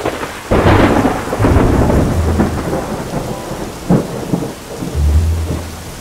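Thunderstorm: steady rain with a loud clap of thunder about half a second in that rumbles on for a couple of seconds, then a sharper crack of thunder near the end.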